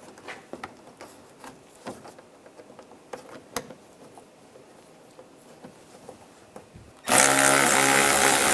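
Faint clicks and rustles of bolts being threaded by hand into plastic trim. About seven seconds in, a cordless electric ratchet starts and runs steadily, driving a bolt home.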